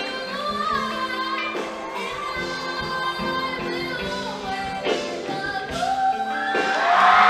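Mixed show choir singing with live band accompaniment, ending on a long held note. Near the end, audience cheering rises over the music.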